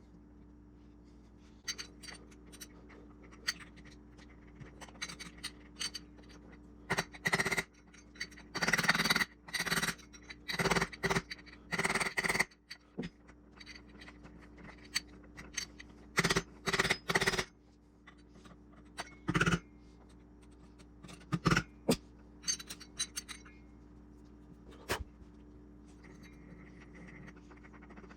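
Hand tools and metal parts being worked at a bench: irregular scraping and clinking, in short bursts that come thickest in the middle, over a faint steady hum.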